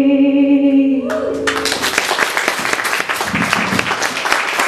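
The last held sung note of a song over guitar ends about a second in, and an audience breaks into applause.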